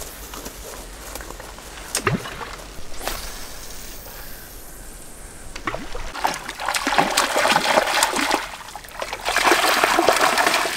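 Water splashing that comes and goes from about six seconds in, loudest near the end where a hooked cutbow (cutthroat–rainbow hybrid) trout thrashes at the surface as it is reeled in close to shore. A single sharp click comes about two seconds in.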